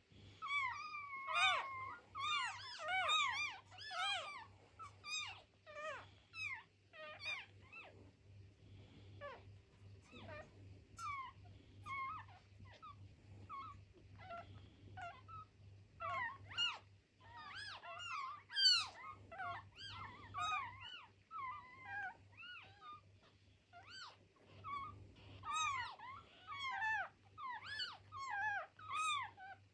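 Newborn kittens, two days old, mewing: many short high calls from several kittens at once, overlapping, busiest at the start, again from about 16 to 21 seconds, and near the end.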